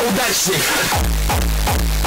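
Electronic outro music: a glitchy passage of sliding tones, then a steady kick-drum beat over deep bass comes in about a second in.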